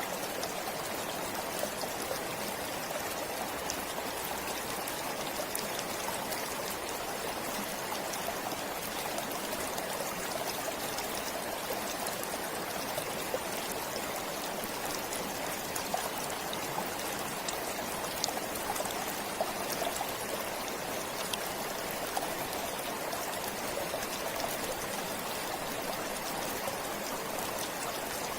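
A forest stream flowing steadily, a continuous babbling rush of water with small splashes and drips through it.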